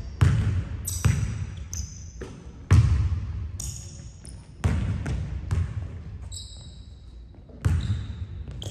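Basketball bouncing on a hardwood gym floor, about six separate hard bounces at uneven intervals, each ringing out in the large hall. Short high-pitched squeaks come in between, from sneakers on the hardwood.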